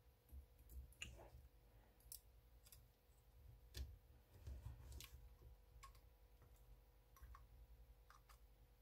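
Faint, scattered small clicks and taps of a smartphone logic board and its parts being handled and pressed into the phone's frame.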